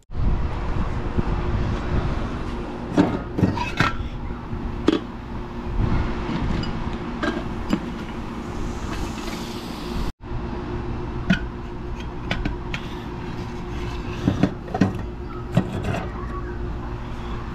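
Wood chips clicking and knocking as they are handled and loaded into a Masterbuilt electric smoker's wood-chip loader: a scatter of short sharp clicks over a steady low outdoor rumble and hum.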